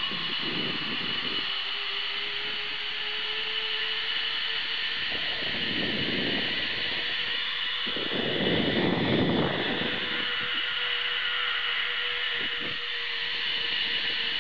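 Zipline trolley pulleys running along the cable with a steady whine that rises slightly in pitch, over rushing wind noise on the microphone that gusts strongest about eight to ten seconds in.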